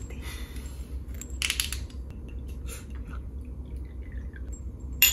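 Soju being poured from a glass bottle into a small ceramic cup, among light clinks of cups and tableware. A single sharp clink with a brief ring comes just before the end.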